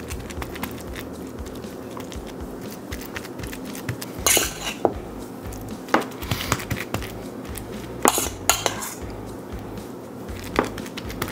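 A metal spoon clinking and scraping against a stainless steel bowl and a metal sheet pan while stuffing is spread onto meat, with many small clicks and a few louder scrapes about four and eight seconds in.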